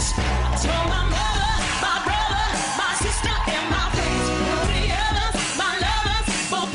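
Pop song with a sung lead vocal over a heavy bass beat: dance routine music.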